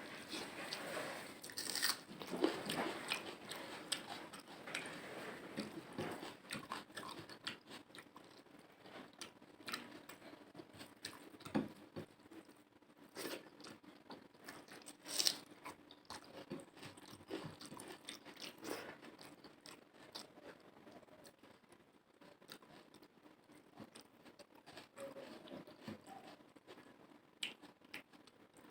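A person eating curry and rice close to the microphone: irregular chewing, biting and wet mouth clicks, with the odd louder crunch, one of them about halfway through.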